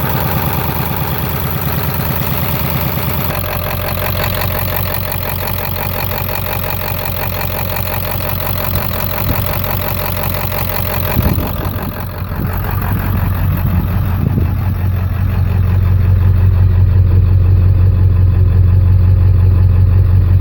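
7.3-litre V8 diesel engine running at a rough idle, the owner's complaint along with blow-by. The sound changes about three seconds in and again past the middle, then grows louder with a stronger low hum near the end.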